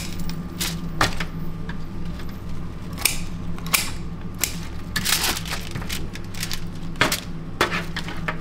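Scattered clicks and knocks of kitchen work, utensils and metal cookware being handled, over a steady low hum of kitchen equipment.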